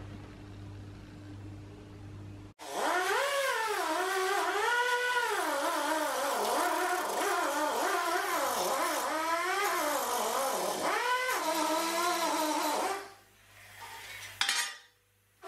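Die grinder with a roll-lock surface conditioning disc polishing a welded-up hole in steel sheet. It is a loud whine that keeps rising and falling in pitch as the disc works the metal. It cuts in suddenly after a low hum about two and a half seconds in, dies away near the end, then gives one short burst.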